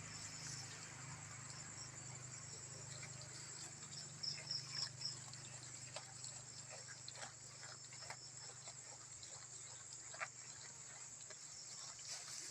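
Faint, steady high-pitched chirring of crickets, with a quick run of higher chirps about four seconds in and scattered soft clicks and knocks over a low steady hum.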